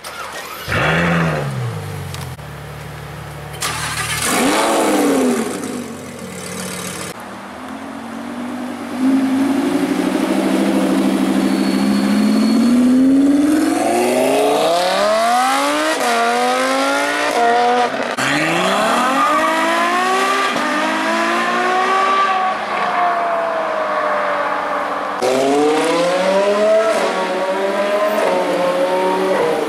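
Supercar engines revving and accelerating: a couple of short rev blips, then a car pulling away with the engine pitch climbing in repeated sweeps, each broken by a drop at a gear change.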